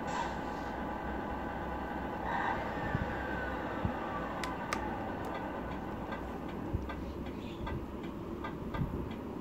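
RC Scania truck's sound unit playing a simulated diesel engine idling steadily. There is a short hiss at the start, a falling whine a few seconds in, and regular ticking near the end.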